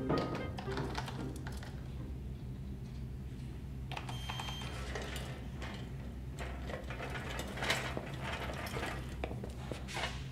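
Office room tone: a steady low hum with scattered soft clicks and taps, like desk and keyboard handling, and a brief high electronic beep about four seconds in.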